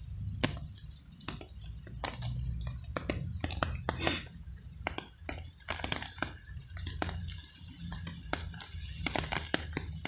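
Stray tabby cat chewing pieces of cooked veal: an irregular run of sharp, wet clicks and smacks from its mouth, several a second, over a low steady rumble.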